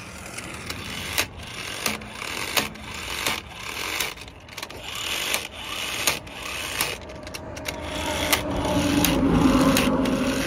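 Tyre-change work on a van wheel: scattered metallic knocks and clicks from tools and wheel parts, and a steady motor hum that swells near the end.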